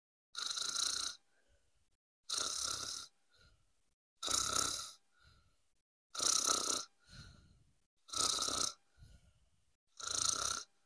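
Snoring sounds for a plush toy cat put to sleep, one even snore about every two seconds, each followed by a fainter breath out.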